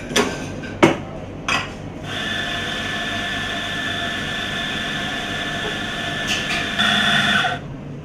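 Three sharp knocks, then an espresso grinder runs with a steady whine for about five and a half seconds, grinding coffee into a portafilter, and cuts off just before the end.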